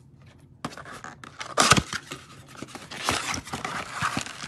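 Cardboard trading-card blaster box being handled and pulled open: irregular scraping and rustling of cardboard, with the loudest burst and a thump about a second and a half in.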